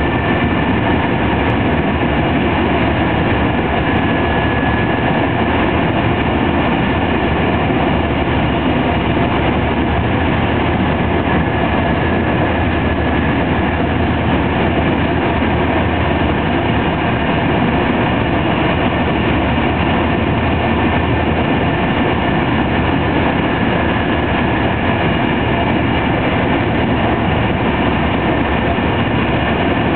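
TER 200 passenger train running at speed, heard from inside the coach: a steady rumble of wheels on rail with a thin high whine over it.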